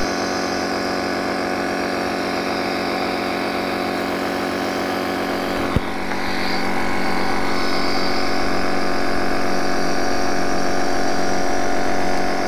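Piston-type jet nebulizer compressor running with a steady hum of many even tones. A single sharp click comes about halfway through, after which the hum is a little louder.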